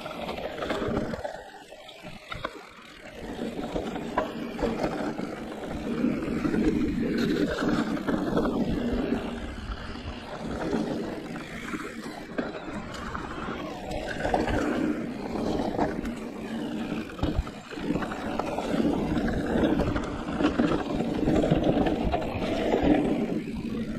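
Riding noise of a Giant Reign E+ electric enduro mountain bike on a trail: a continuous rumble of tyres and rattling bike, with sharp knocks from bumps, easing off briefly about two seconds in.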